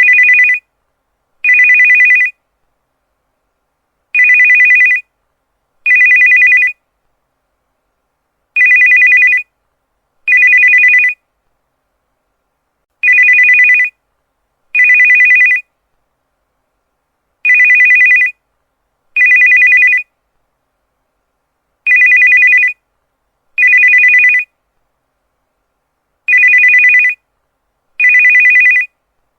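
Cell phone ringtone: an electronic two-tone ring sounding in pairs of short rings, a pair about every four and a half seconds.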